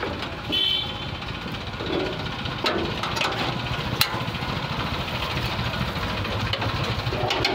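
A steady low engine rumble runs underneath, with a few light knocks and clicks from the plastic front cover of a gas water heater being handled and lifted off; the sharpest click comes about four seconds in.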